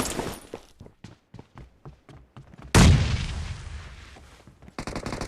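Video game gunfire: a run of fainter shots, about five a second. A loud explosion comes about two and a half seconds in and dies away over about two seconds. Rapid automatic fire starts near the end.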